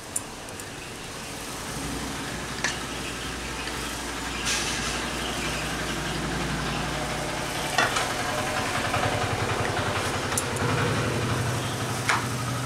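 Steady low hum of an engine idling, which swells about two seconds in and runs on, with a few light knocks from a wooden rolling pin rolling paratha dough on a wooden board.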